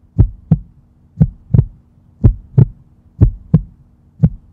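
Heartbeat sound effect: a slow lub-dub double thump about once a second, five beats in all, over a faint steady low hum.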